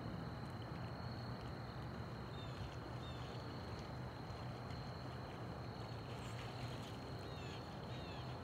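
Open-air ambience at a pond: a steady low rumble and hiss under a constant high-pitched drone, with a few short downward-sliding bird chirps, two of them close together near the end.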